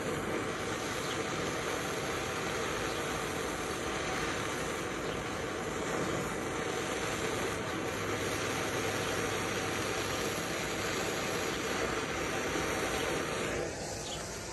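Handheld gas blowtorch burning with a steady hiss as it heats a steel bolt; the flame cuts off near the end.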